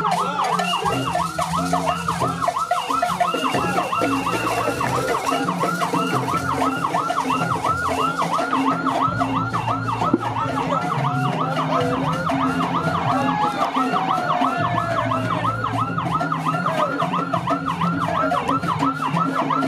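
Ambulance siren in fast yelp mode, its pitch sweeping up and down about three times a second without a break.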